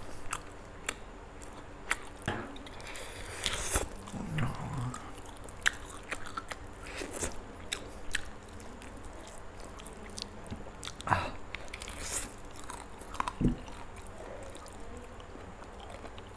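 Close-up chewing and biting of a spicy roast chicken leg piece: irregular wet clicks and occasional soft crunches.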